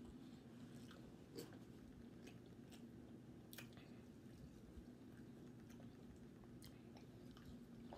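Faint close-up chewing and wet mouth clicks of a person eating a fried pork chop sandwich, with a steady low hum underneath.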